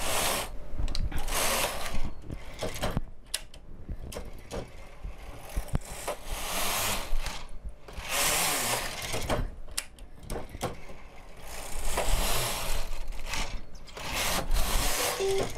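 Carriage of a single-bed knitting machine pushed back and forth across the needle bed, knitting rows: several rushing, rasping passes of a second or two each, with clicks between them.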